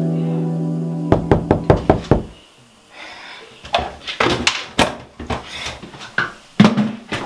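A sustained piano chord dies away in the first second. It is followed by a quick run of sharp knocks and clicks, then, after a short pause, more irregular knocks and clicks, such as items being handled and set down on a bathroom counter.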